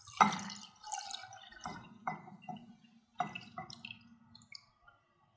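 Fresh milk poured from one bowl into a large ceramic bowl, splashing and dripping in several surges before trailing off near the end.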